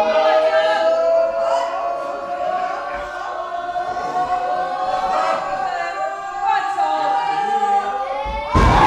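A crowd of high-pitched voices holds a long, slowly rising 'ooh' together. Near the end a heavy thud of a body slamming onto a wrestling ring's canvas cuts in, and the crowd breaks into loud yelling.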